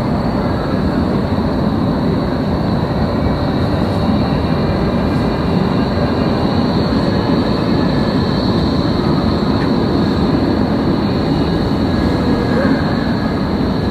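Urban square ambience: a steady, dense rumble of city traffic.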